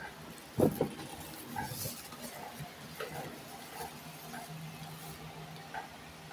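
Handling noise: two quick knocks close to the microphone just over half a second in, then faint small rustles of trading cards being touched on a playmat. A low steady hum comes in about four and a half seconds in.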